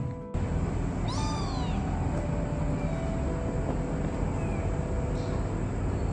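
A kitten meows once about a second in: a short, high cry that rises and then falls.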